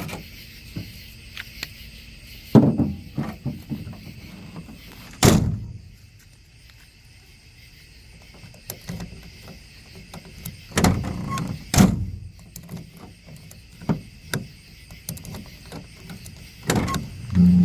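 Clunks and clicks of a 2000 Ford F-150 tailgate latch mechanism being worked by hand, a few sharp knocks spread irregularly with quieter clicking between. The locking mechanism is freshly sprayed with WD-40 after freezing up.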